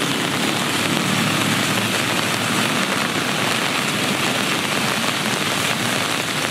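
Heavy rain pouring steadily onto a station platform and tracks, an even hiss.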